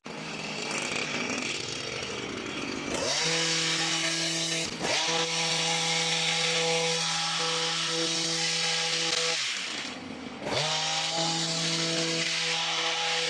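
A motorised garden trimmer runs at high speed, a steady high-pitched whine. It revs up about three seconds in, eases off briefly around ten seconds in, then revs back up to full speed. The first few seconds are a rushing noise.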